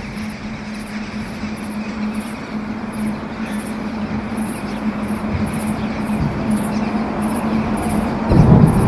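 Droning ambient soundtrack: a steady low hum over a rushing noise bed, with a faint high hiss pulsing about twice a second. A deeper rumble swells in near the end.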